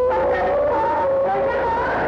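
Eerie wailing: several overlapping drawn-out tones that waver and slide in pitch, like moaning voices.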